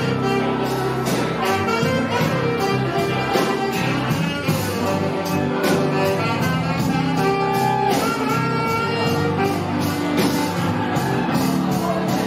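Live band playing an instrumental passage, a tenor saxophone carrying the lead over electric guitar, electric bass, drums and keyboards, with a steady beat.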